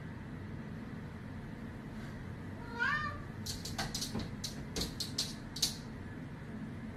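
A Bengal cat gives one short meow about three seconds in. Right after comes a quick run of about eight light taps and scrapes as its paws and claws bat at a mirror.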